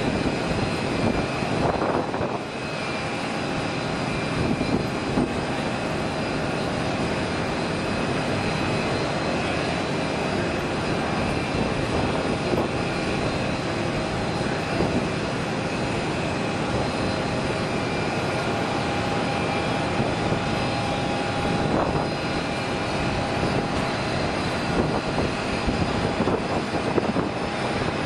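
Airbus A350-1000 jet engines running steadily as the airliner taxis: a continuous rushing noise with a steady high whine over it.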